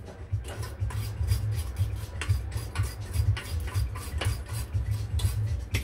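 Toothbrush bristles scrubbing black glue residue off an Antminer S9 hashboard: a run of short rasping strokes, about three a second.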